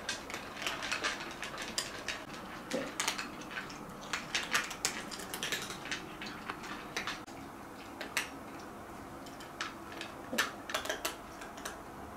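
Cats eating from bowls: irregular crunching and clicking of chewing, with occasional clinks against the dish.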